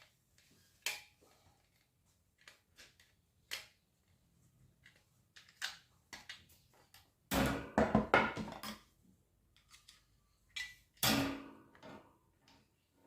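Small metal parts and tools being handled on a work surface: scattered clicks and clinks, with two louder clattering bursts about seven and eleven seconds in.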